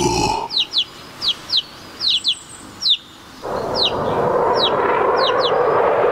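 Small-bird chirping sound effect: quick, high chirps that fall in pitch, often in pairs. About three and a half seconds in, a louder steady rushing noise comes in and takes over, with faint chirps still above it.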